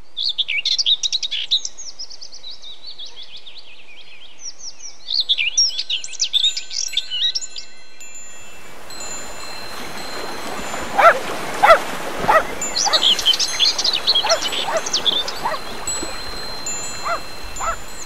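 Songbirds chirping and singing in quick, high, gliding phrases. About eight seconds in, a steady hiss builds up beneath them, with long, high ringing tones like chimes and a few louder sharp sounds.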